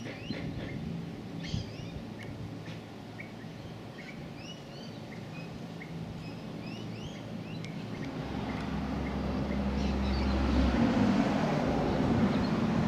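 Helicopter in flight, droning faintly under birds chirping, then growing louder from about eight seconds in as a Bell 214B-1 firefighting helicopter comes in, with wind rumbling on the microphone.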